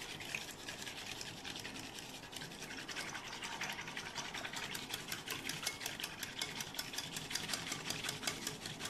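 Metal balloon whisk beaten fast through thinned yogurt in a bowl: quick, rhythmic strokes of the wires swishing through the liquid and ticking against the bowl, getting faster and louder about three seconds in. The yogurt drink (mattha) is being whipped to raise a froth.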